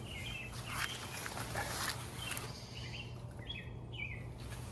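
Small bird chirping in short calls several times, over a steady low hum.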